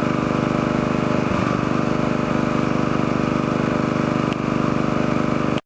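A small engine running steadily at an even speed, cutting off abruptly near the end.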